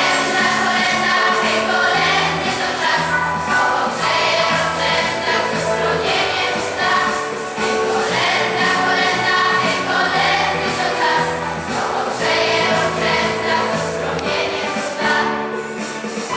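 Choir singing a Polish Christmas carol, with sustained notes changing every second or so.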